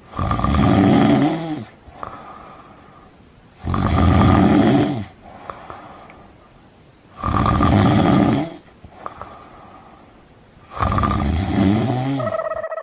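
A person snoring: four loud snores about three and a half seconds apart, with quieter breaths between them.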